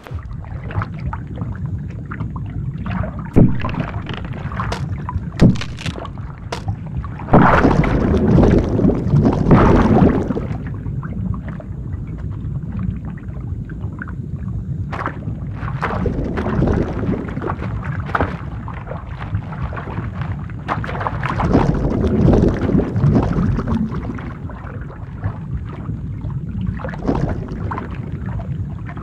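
Ice cracking through with sharp snaps, then a loud crash into water about seven seconds in, followed by a steady muffled underwater rumble with slow swelling surges.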